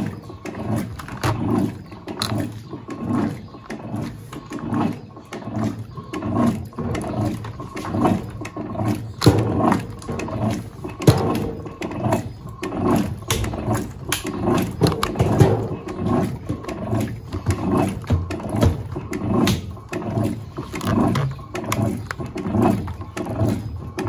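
Electrolux LTA15 top-loading washer's direct-drive agitator in its wash agitation, swinging back and forth about once a second. Each stroke brings a low motor surge with water and wet laundry sloshing in the tub.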